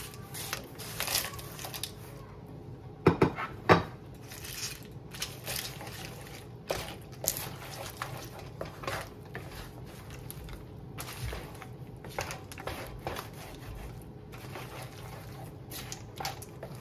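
Crisp fried tortilla pieces and bacon tipped into a frying pan of scrambled eggs, then a wooden spatula stirring and scraping through them in the pan, with irregular clicks and scrapes. Three loud knocks come about three to four seconds in.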